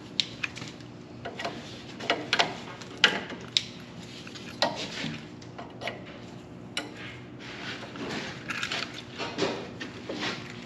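Scattered sharp metallic clicks and knocks over a steady low hum, from work on welding a bent steel mower bracket.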